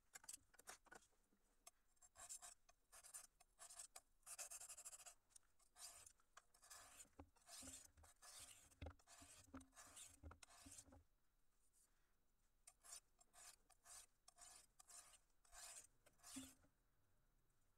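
High-carbon steel knife blade drawn by hand across a flat sharpening stone: a faint series of quick scraping strokes in three runs, with short pauses between them.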